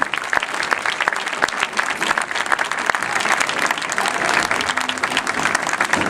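Crowd applauding steadily with dense clapping, in response to a placement being announced at an awards ceremony.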